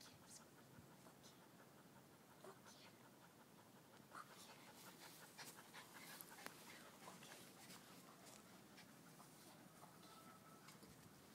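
Faint sounds of dogs playing on grass: light panting with soft scratchy rustles and small clicks, otherwise near silence.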